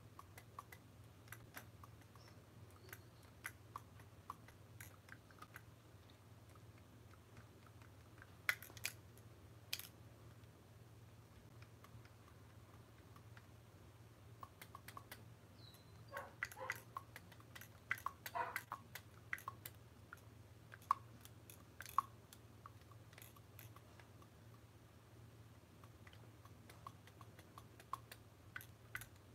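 Scattered soft clicks and taps of a clarinet's metal keys as fingers work over the keywork of one joint, coming in loose clusters, over a faint steady low hum.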